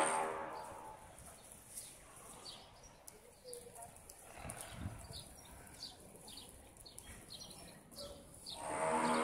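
Background music fades out, leaving faint outdoor ambience with scattered short bird chirps and a brief low rumble about halfway through. The music fades back in near the end.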